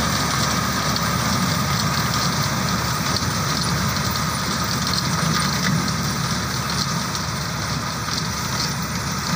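Wheat reaper binder running steadily in the field: its engine with a fast mechanical clatter from the working machinery.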